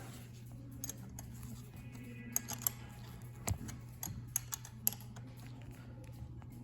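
A handful of light, sharp metallic clicks and taps from tools and brake parts being handled while a bicycle brake cable is adjusted, over a steady low hum.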